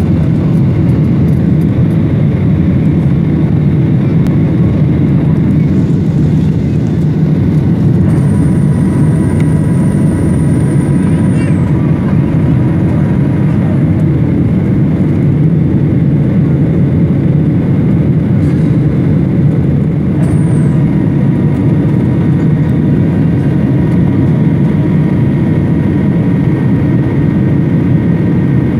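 Steady, loud cabin noise of a jet airliner in flight, engine and airflow heard from a window seat over the wing. A faint high tone sounds for about three seconds roughly a third of the way in.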